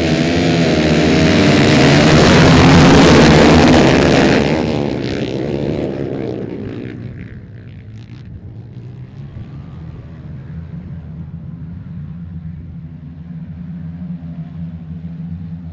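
A pack of ice-racing motorcycles revving hard and pulling away together off the start line. The sound is loudest in the first few seconds, then drops to a steadier engine drone as the bikes race on across the ice.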